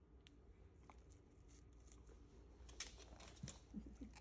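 Near silence with scattered faint clicks and rustles, a little busier toward the end.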